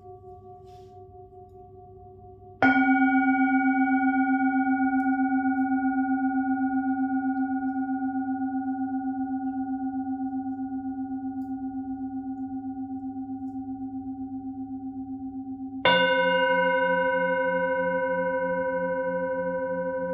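Singing bowl struck and left to ring, its tone pulsing slowly as it fades. It is struck again near the end, bringing in a lower, wavering tone over the ringing.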